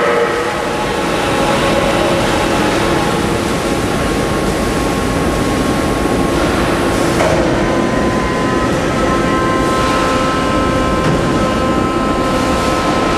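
Steady machine noise from a CNC steel-beam processing line working on an H-beam: a dense hum with a few steady whining tones. A brief sharp clank comes about seven seconds in, after which the tones change pitch.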